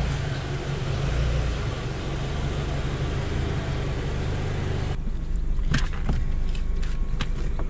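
Car engine and road noise heard from inside a moving car. About five seconds in it cuts abruptly to a quieter low engine hum with a few sharp clicks.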